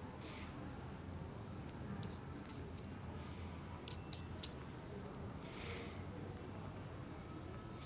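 House sparrow chirping: short, sharp high chirps in two groups of three, one about two seconds in and another about four seconds in.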